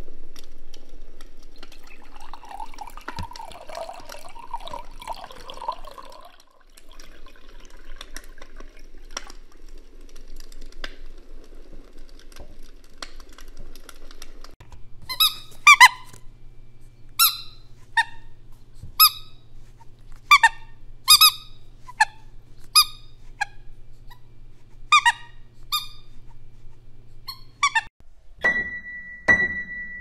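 Foley sounds: water poured from one cup into another with a gurgle, over a low crackling fire with scattered pops. About halfway through, a squeaky dog toy squeezed roughly once a second stands in for squeaking running shoes. Near the end come piano notes struck for tennis ball bounces.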